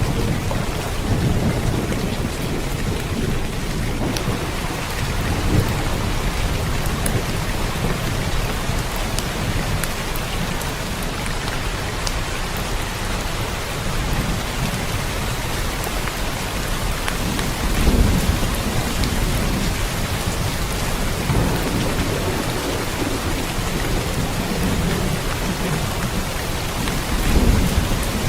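Steady rain falling, with a low rumble underneath that swells twice, about two-thirds of the way through and again near the end.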